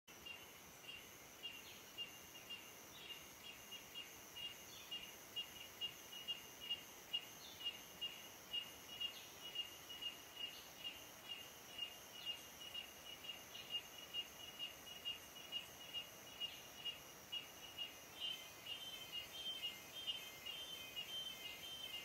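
Rainforest chorus of small creatures: a high chirping repeated about twice a second over a fainter, constant high buzz, growing denser and busier near the end.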